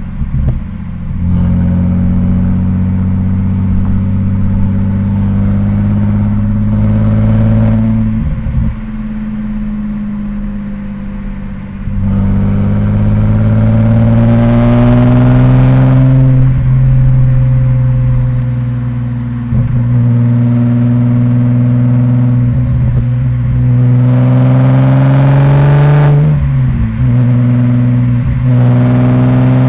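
Audi S4 B5's twin-turbo 2.7-litre V6 pulling steadily through the gears at part throttle, engine note rising over each long pull. A high turbo whistle climbs with boost and sweeps down when the throttle lifts for shifts, about 8, 16 and 26 seconds in.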